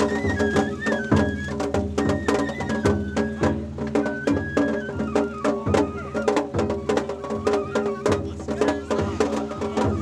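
Live Japanese festival hayashi: a bamboo transverse flute (shinobue) plays a stepping, high melody over quick, steady drum strikes.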